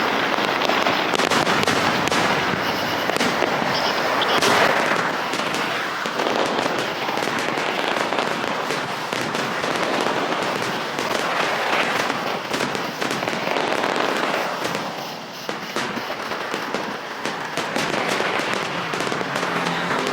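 Fireworks display going off: a dense, continuous crackling and popping of many fireworks at once.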